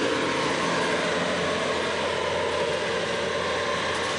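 Bobcat compact track loader running steadily as it works, a continuous engine sound with a few held tones over it.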